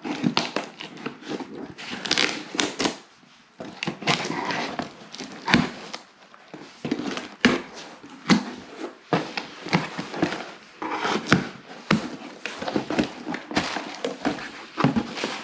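Box cutter slicing through packing tape and cardboard, with scraping, rustling and irregular sharp knocks as the box is handled.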